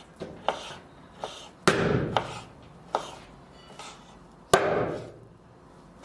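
Kitchen knife cutting fat into cubes on a wooden cutting board: uneven light taps of the blade on the board, with two heavier chops, about two seconds and about four and a half seconds in.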